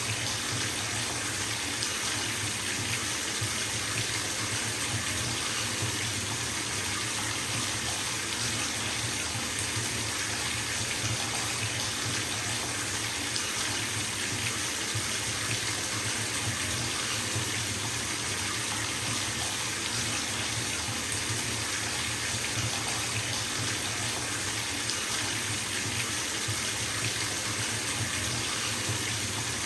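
Water running from a bathtub tap into a filling tub, a steady even rush of splashing water with no change in level.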